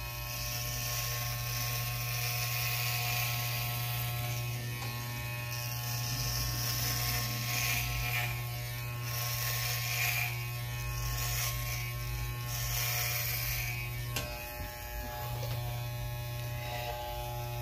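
Electric hair clippers buzzing steadily while shaving hair close to the scalp, the cutting noise swelling with each pass through the hair. The buzz drops out briefly about fourteen seconds in.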